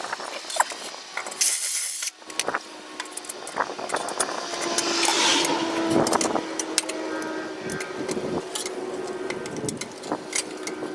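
Scattered clicks and clinks of a metal catalytic-converter shield being handled and pressed against a car's underbody, with a short hiss-like burst about a second and a half in and a faint steady hum in the background.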